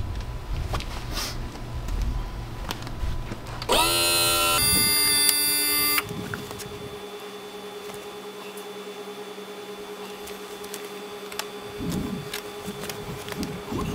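Mercury 75 hp outboard's electric power trim-and-tilt motor whining as it raises the engine. It starts about four seconds in, climbs in pitch, runs steady for about two seconds and cuts off suddenly.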